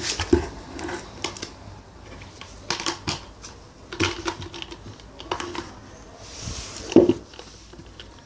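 Empty plastic bucket being pushed about and tipped over by a baby: groups of light clacks and knocks from the bucket and its handle every second or so, the loudest a deeper thump about seven seconds in.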